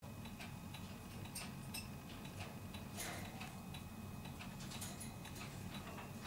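Soft, irregular clicks and smacks of a kitten licking and nibbling at a dog's ear, over a low steady hum.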